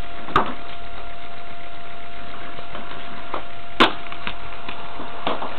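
Scattered sharp clicks and knocks over steady hiss, with two louder clicks about half a second in and near four seconds and a few fainter ones between; a faint steady tone runs underneath.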